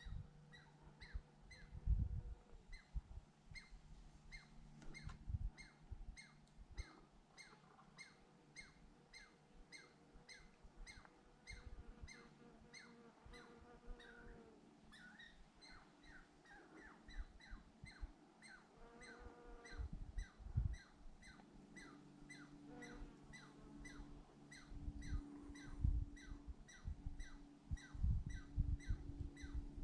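A squirrel gives a long, regular series of short, falling calls, about two a second. Low thumps and rumbles come now and then, most around the end.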